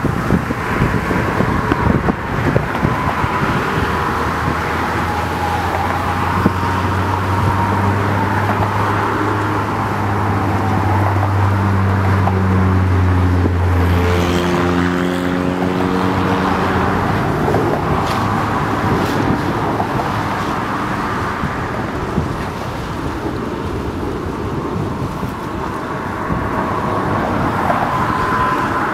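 Steady engine and traffic noise, with a deep engine drone that swells in and drops away about halfway through.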